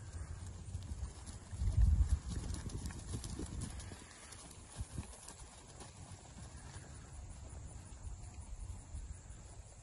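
Hoofbeats of a Missouri Fox Trotter gelding moving at a steady gait across a grass field, muffled thuds under a steady low rumble. A louder low rumble comes about two seconds in.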